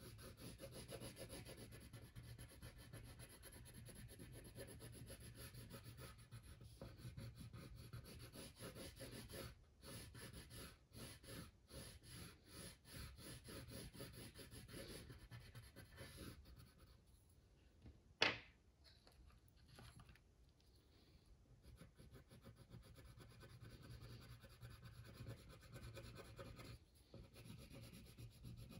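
Faint scratchy strokes of a wax crayon rubbed back and forth on paper, colouring in an area. About 18 seconds in the strokes pause and there is one sharp click, then the colouring goes on.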